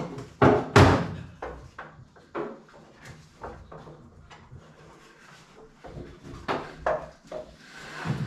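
A run of knocks and clatters from gear being handled off camera, the two loudest coming close together a little under a second in, then lighter scattered knocks.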